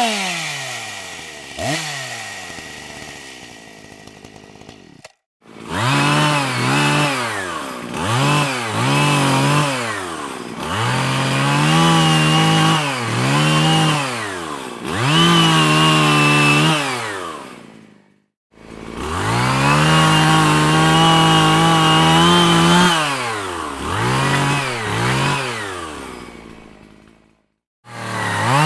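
Chainsaw engine being revved over and over: the pitch climbs, holds at full throttle for one to several seconds, and falls back. It opens with the engine winding down in pitch. The sound cuts out briefly three times, about five seconds in, near eighteen seconds, and shortly before the end.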